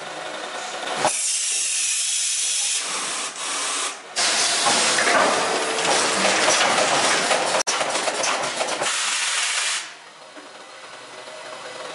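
Automatic cable stripping machine at work: a loud hiss switches on abruptly about a second in, dips briefly near four seconds, and cuts off sharply near ten seconds, leaving a quieter machine hum.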